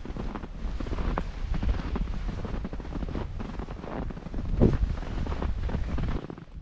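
Wind buffeting the microphone, an uneven low rumble with scattered short clicks and knocks; the rumble drops away near the end.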